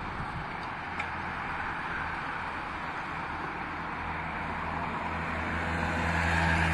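Race-convoy cars and a motorcycle driving past one after another, with engine hum and tyre noise on the road. The sound builds to its loudest near the end as the motorcycle passes close by.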